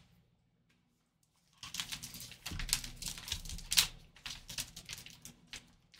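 Sealed foil trading-card pack being torn open and crinkled by hand. Irregular crackling and tearing start a little under two seconds in and are loudest about two-thirds of the way through.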